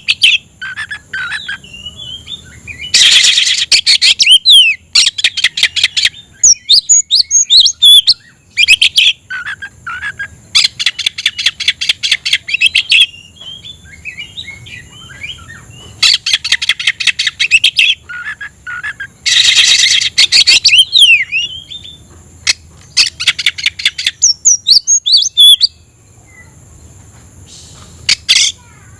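Oriental magpie-robin (kacer) singing loudly in full voice, mixing whistled glides and chattering phrases with repeated fast rattling bursts of notes every few seconds. This is the challenging song of a bird calling out a rival.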